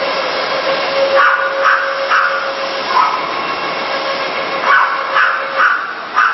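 A machine motor running steadily with a whine, from a mosaic glass making machine. About eight short sharp sounds come over it, bunched in the first half and near the end.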